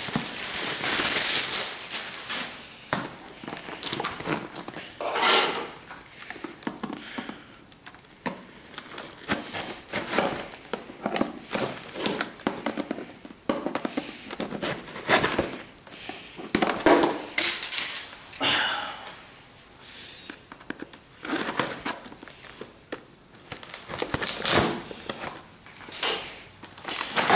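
Plastic packaging crinkling and rustling in irregular bursts as it is handled and cut open, with crackles and scrapes.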